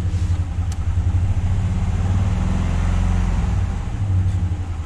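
Chevy 2500HD's 6.0-litre V8 idling with a knock from inside the block, which the owner suspects is a semi-stuck valve.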